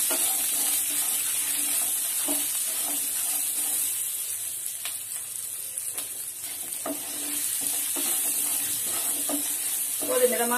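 Shallots, dried red chillies, garlic and urad dal being stir-roasted in a kadai, a spatula scraping and turning them over a steady sizzle, with short scrapes every second or two.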